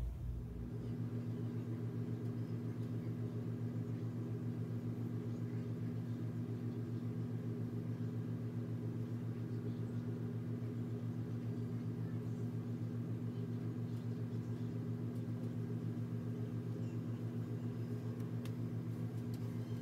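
A steady low hum of a machine or appliance, made of several constant tones, starting about a second in.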